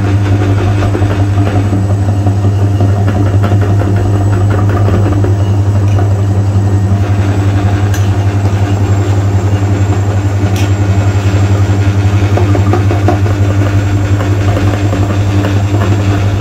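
Meat grinder running with a steady, even low motor hum as it forces ground Oreo paste out through its plate.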